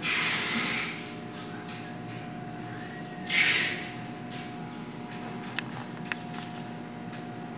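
Two short rushes of hiss, then two light clicks about half a second apart as a hand presses on a small plastic wireless audio transmitter, over a faint steady electrical hum.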